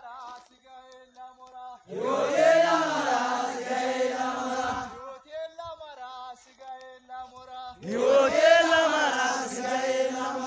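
A group of men chanting in unison in two loud stretches, with a quieter single voice leading in the gaps between them, like a call-and-response drill chant.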